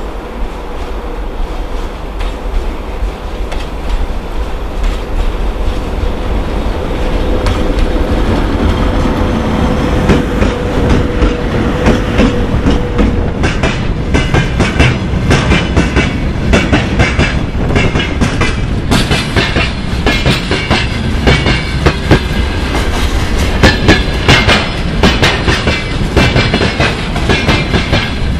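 VL80T electric locomotive approaching and passing with a freight train, a steady hum and rumble growing louder. From about halfway, freight hopper wagons roll past close by with rapid, sharp clickety-clack of wheels over the rail joints.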